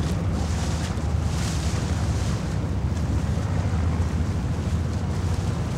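Motor launch engine running steadily with a low drone, under wind buffeting the microphone and water rushing past the hull; a hiss of spray or wind swells about a second in.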